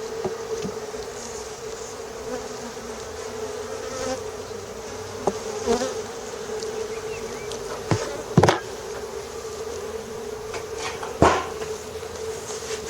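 Honeybees buzzing in a steady hum around an opened hive, with a few sharp knocks, the loudest about eight and a half and eleven seconds in.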